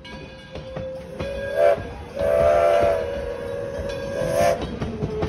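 The Edison No.1 4-4-0 steam locomotive's whistle sounding. It opens faintly, gives a short blast about a second in, then a long blast from about two seconds that fades and swells again before cutting off near the end, with a few sharp knocks around it.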